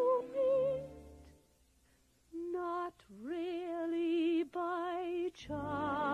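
Female soprano singing a show tune, holding notes with a wide vibrato. About a second in, the music drops to a near-silent pause. The voice then returns with sustained notes, and near the end the orchestral accompaniment swells fuller beneath it.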